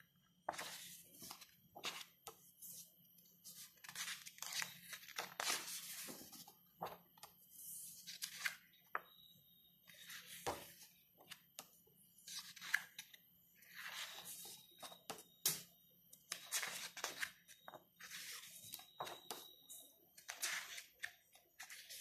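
Pages of a large photobook being turned by hand: many short, irregular paper swishes and rustles as the heavy pages are lifted, slid and flipped over.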